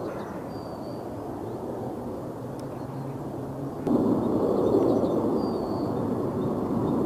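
Distant jet engine roar from a HOP! regional jet climbing out after takeoff. About four seconds in it cuts abruptly to a louder, steady rumble from an airBaltic Airbus A220-300 and its Pratt & Whitney geared turbofans on approach.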